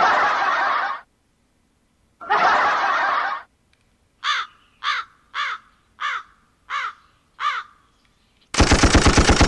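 Built-in sound effects played from the so8 live-streaming sound card: two short bursts of noise, then a crow cawing six times, each call falling in pitch, then a loud rapid buzzing pulse near the end.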